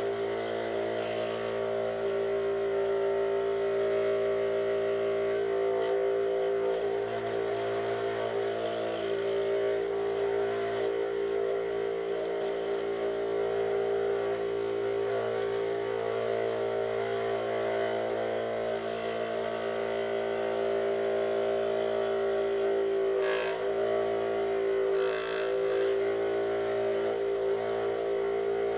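Dremel Moto-Shop scroll saw running steadily as its blade cuts through 5 mm plywood, a constant motor hum. Twice near the end there is a brief click.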